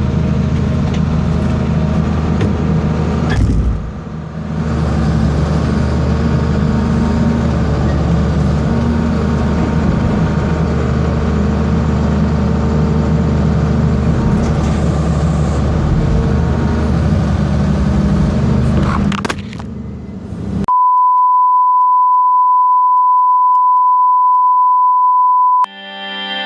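John Deere 690C excavator's diesel engine running steadily under work. About twenty seconds in it cuts off, and a single steady high beep holds for about five seconds.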